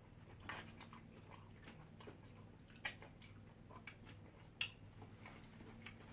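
Faint eating sounds: chewing and mouth noises with a few short sharp clicks, the loudest just under three seconds in and again about a second and a half later, over a steady low hum.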